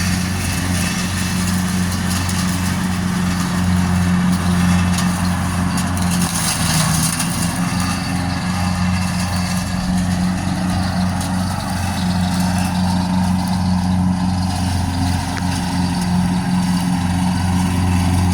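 Riding lawn mower's engine running steadily with a low hum, its pitch dipping briefly about six seconds in.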